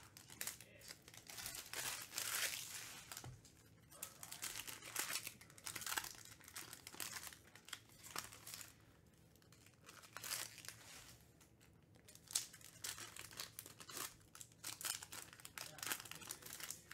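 Foil card-pack wrappers being torn open and crinkled by hand, with the cards inside slid out and handled between tears. Some of the tears sound like zippers, and the loudest tearing comes about two seconds in.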